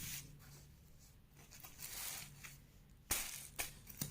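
A few brief, crisp rustles of a saree being handled, mostly from about three seconds in, with low room tone before them.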